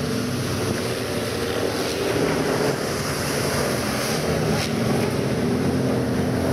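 VW Beetle race cars' air-cooled flat-four engines running hard as several cars pass one after another on a dirt track, the engine notes shifting in pitch as each car comes by.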